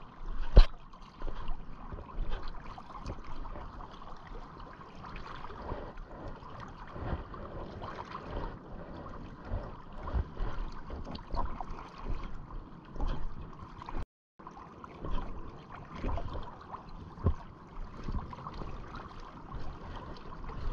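River water lapping and gurgling right beside the microphone, with a sharp knock about half a second in. The sound cuts out for a moment about fourteen seconds in.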